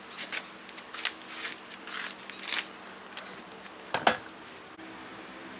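Irregular crackly scraping and clicking of a turning tool against a maple burl spinning on a lathe, with a sharp knock about four seconds in.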